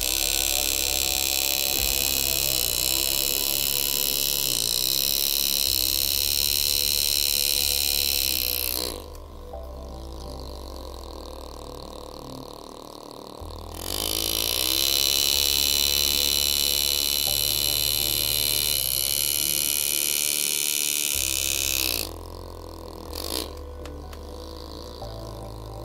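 Air-driven engraving handpiece cutting stainless steel: a steady high buzz and hiss in two long runs of about nine and eight seconds, its pitch sliding up as it starts and down as it stops.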